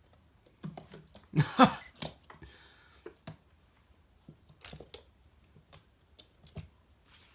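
Kittens scuffling in a bucket: scattered light scratches and knocks. About a second and a half in comes a brief, loud voice-like sound, and a short faint hiss follows.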